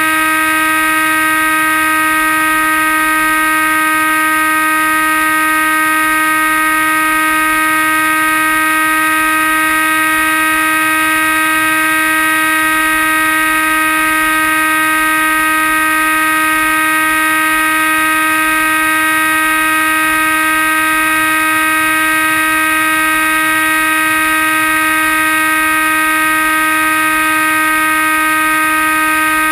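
Comet RC flying wing's motor and propeller running at full throttle, carrying the weight of an onboard GoPro: a loud, steady whine that holds one pitch throughout, with wind noise beneath.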